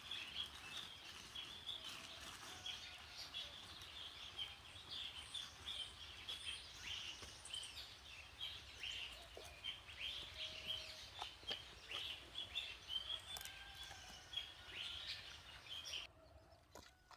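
Birds chirping and twittering, many short overlapping high calls with a few longer whistled notes, until the sound cuts off about sixteen seconds in.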